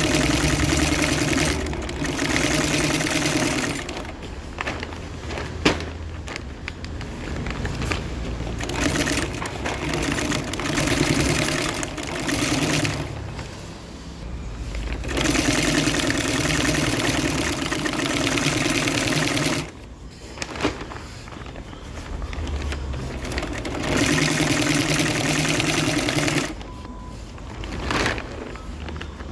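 Industrial double-feed walking-foot sewing machine stitching tarpaulin canvas. It runs in bursts of a few seconds at a time, slowing and pausing between runs, with a sharp click about six seconds in.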